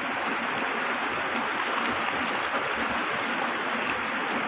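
Steady rush of flowing water, an even hiss with no breaks or distinct events.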